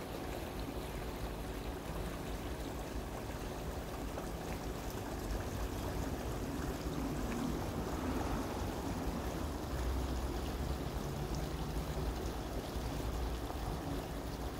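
Shallow pebble-bed brook flowing, a steady rush and ripple of water over stones.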